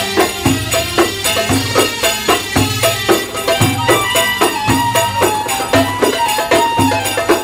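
Egyptian folk music for a tanoura dance: hand-held frame drums beat a steady, driving rhythm, deep strokes falling about once or twice a second amid quick jingling clicks, under a held melody line.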